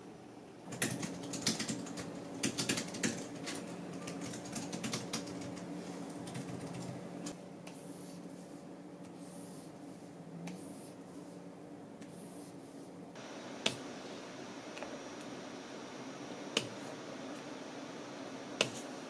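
Light plastic taps and clicks of work at a pen-display drawing tablet, a stylus on the screen and shortcut keys. They come in a quick irregular run over the first several seconds, then as a few single clicks near the end, over a faint steady hum.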